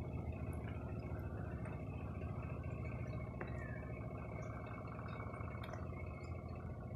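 Wind buffeting the microphone: a steady low rumble of wind noise.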